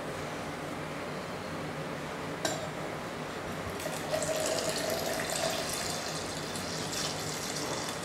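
Milk being poured from a steel vessel into a steel mixer-grinder jar of ground mulberries, a splashing stream that starts about four seconds in. A single knock comes just before the pour.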